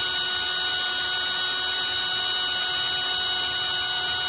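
Rebuilt Honda TRX200D starter motor spun at a steady high speed, giving a steady whine with several overtones; spinning it makes it generate current.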